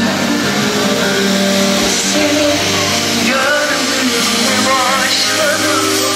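Music playing steadily, with held notes and a wavering melody line coming in about three seconds in.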